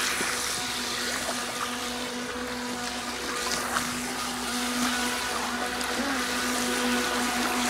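Small electric RC jet boats (Pro Boat Jet Jam 12-inch pool racers, brushed motors) running on the water: a steady motor whine over the hiss of churned water and spray.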